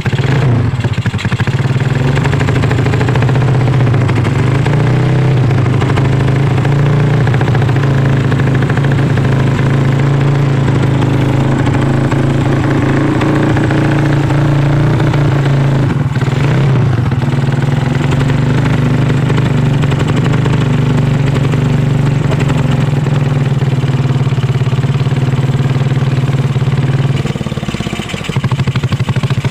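Yamaha Mio Soul scooter engine, bored up to 200cc with a 65.5 mm Honda Tiger piston and Tiger valves, running loud and steady at a held engine speed. The pitch wavers briefly about sixteen seconds in, and the engine sound drops away a couple of seconds before the end.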